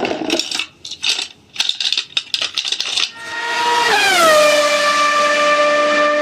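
A rapid, irregular clatter of clicks and rattles for about three seconds, then a train horn starts blowing: a chord of several notes that drops in pitch about a second in and then holds steady.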